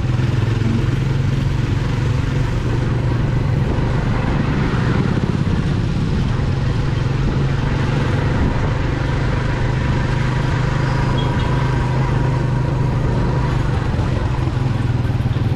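Motorcycle engine of a sidecar tricycle running at a steady cruising speed, heard from the sidecar as a constant low drone with tyre and road noise.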